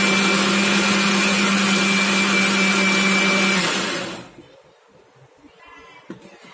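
Electric mixer grinder running at full speed, grinding blanched spinach with a little water into a puree: a loud steady rushing noise with a steady hum. It is switched off about three and a half seconds in and spins down.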